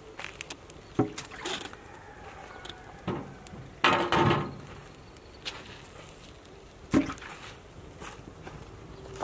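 Irregular knocks and thumps, a few seconds apart, the loudest and longest about four seconds in and another sharp one about seven seconds in.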